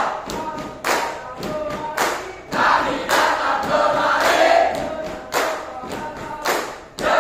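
A group of scouts chanting and singing a yel-yel, a scout group yell, in unison, broken by sharp percussive hits at irregular intervals.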